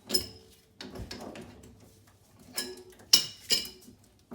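Metal clanking and rattling: a string of sharp knocks with short ringing, the loudest two close together about three seconds in.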